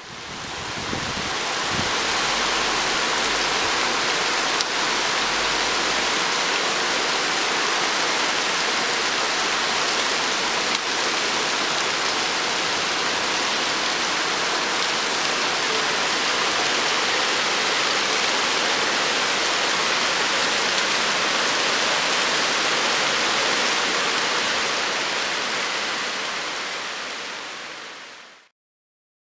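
Heavy rain shower pouring down onto a street, asphalt and parked cars: a dense, steady hiss of downpour. It fades in at the start and fades out near the end.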